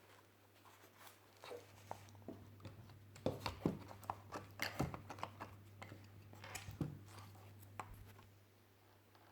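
Packaging being handled during an unboxing: scattered rustles, crinkles and light knocks, busiest from about three to seven seconds in, over a faint steady low hum.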